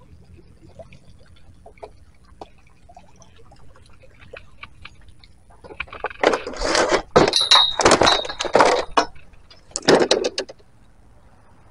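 A television caught on a magnet-fishing rope being dragged up over the lake's edge: faint light knocks at first, then loud bursts of rough scraping and clattering from about six seconds in, with a short squeak among them and a last burst near the end.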